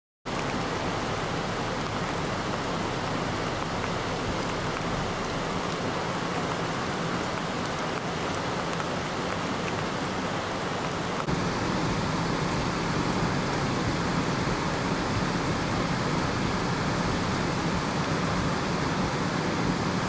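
Steady rushing roar of the flooding Tule River, a brown torrent in spate, mixed with falling rain. The noise gets slightly louder and changes character about halfway through.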